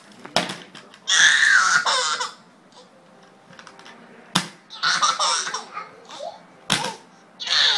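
Toddler laughing in three bursts, with sharp knocks in between.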